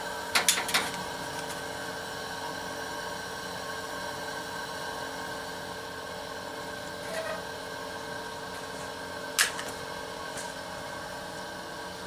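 Two-burner camp stove with its burner lit and burning, giving a steady gas hiss. A quick cluster of sharp clicks comes about half a second in, and a single sharp click about nine seconds in.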